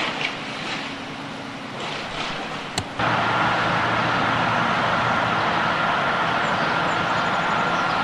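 Outdoor noise of vehicles. About three seconds in, after a sharp click, it switches abruptly to a louder, steady engine-like running sound with a thin high whine over it.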